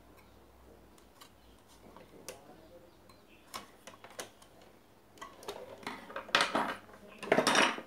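Scattered light clicks and ticks of small parts and tools being handled as a blender base is taken apart, with louder bursts of scraping and clatter about six and seven and a half seconds in.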